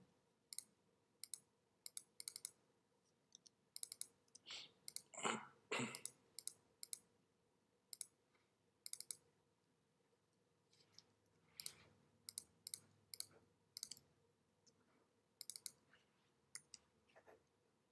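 Faint, scattered clicks from working a computer, many coming in quick pairs and clusters as files are clicked and dragged. There is a softer, longer noise a little past five seconds.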